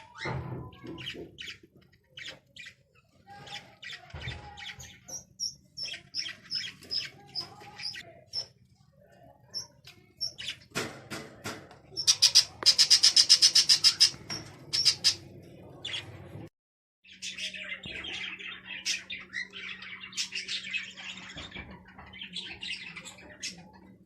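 Small birds chirping and squawking: scattered short high chirps, then a loud, fast run of calls around the middle. After a brief drop to silence, dense chirping continues over a steady low hum.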